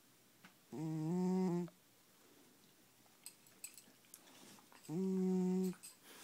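An elderly cat snoring in its sleep: two loud, humming snores about four seconds apart, each lasting about a second, the first stepping slightly up in pitch partway through. Faint breathing and small clicks come between them.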